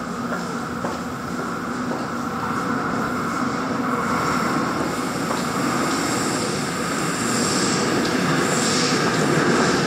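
Seoul Subway Line 5 train approaching through the tunnel, its running noise growing steadily louder as it nears. A higher hiss builds over the second half.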